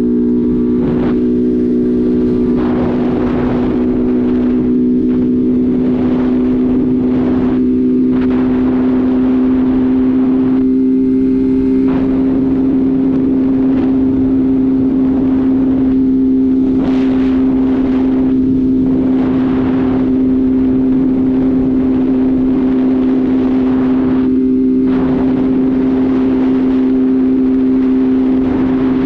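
Motorcycle engine running at a steady cruising speed, with an even, unchanging hum. Wind rushes past the microphone, swelling and fading every second or two.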